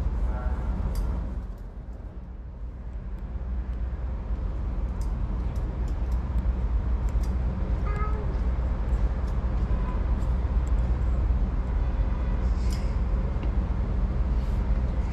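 Steady low engine hum, like a vehicle engine running nearby, continuous over a general outdoor background, briefly quieter a couple of seconds in.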